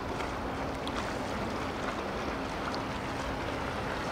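Japan Coast Guard survey ship Heiyo (HL11) under way, a steady low engine hum under a wash of wind noise on the microphone.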